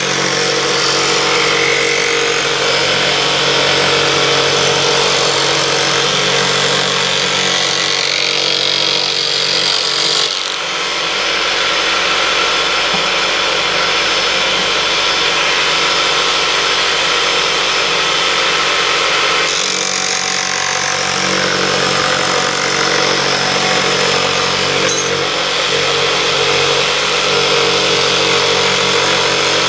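A jigsaw mounted under a homemade jigsaw table runs steadily while its blade cuts wooden boards fed across the table by hand.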